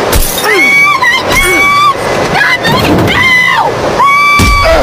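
A woman screaming in a run of long, high-pitched cries while a wooden bat smashes into a car windshield, with sharp cracking hits of the glass near the start, about two seconds in and near the end.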